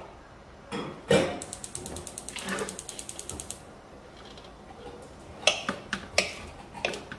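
Wooden spatula knocking against a metal wok while stirring a stir-fry, with several sharp knocks in the second half. After a knock about a second in comes a fast, even run of mechanical clicks, about ten a second for two seconds.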